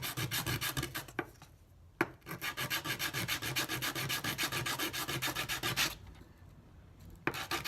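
Coarse-grit sandpaper rubbed by hand over a small piece of purpleheart wood in quick, even back-and-forth strokes, stopping briefly twice, with a light knock as each stroking resumes.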